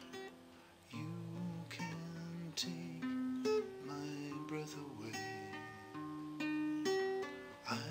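Nylon-string classical guitar fingerpicked: plucked chord notes left to ring, with fresh chords struck about a second in and again just before the end.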